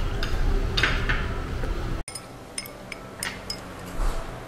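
Light clinks of crockery and cutlery on a glass-topped restaurant table over a low, steady room hum. About two seconds in the sound breaks off abruptly into a quieter background with a few more light clinks.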